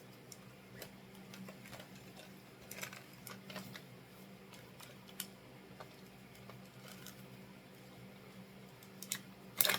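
Faint scattered clicks and taps of packaging and plastic parts being handled, with a louder rustling click near the end, over a faint steady low hum.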